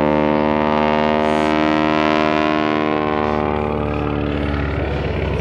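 Biplane's engine and propeller giving a steady drone, which fades away near the end.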